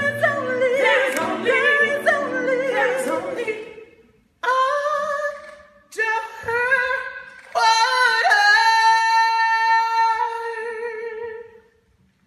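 A small group of voices singing a cappella in harmony, with no instruments. The song breaks into short phrases and closes on a long held note that fades out about eleven seconds in.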